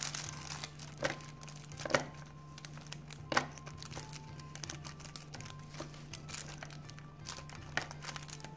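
Plastic wrap crinkling and a metal spoon tapping and scraping in an aluminium foil tin as rice is pressed down into it. A few sharp clicks come about one, two and three and a half seconds in. A steady low hum runs underneath.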